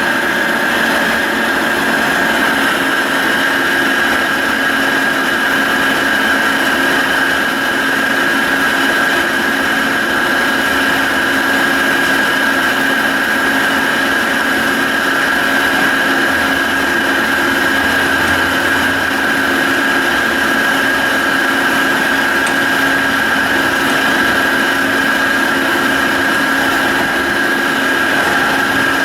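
Carlton radial arm drill press running under power, a steady mechanical hum with a constant high whine and no change in speed.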